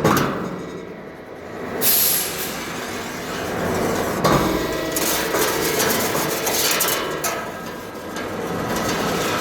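CNC wire bending machine running, a steady mechanical whir with a few sharp knocks as it feeds and bends the wire.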